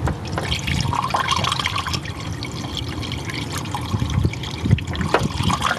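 Distilled water pouring steadily into a radiator as the flushed cooling system is refilled.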